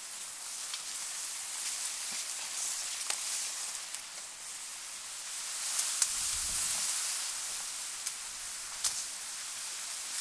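A steady high hiss of outdoor ambience with a handful of short, sharp clicks scattered through it.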